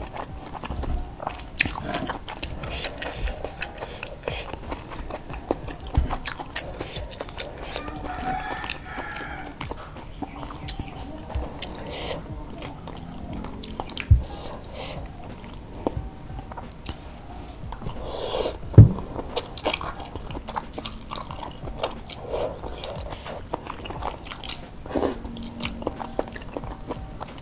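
A person eating boiled egg noodles in broth (bakmi godog): close chewing and biting mouth sounds, with many short crackles and clicks and a few sharper loud clicks, the loudest about two-thirds of the way through.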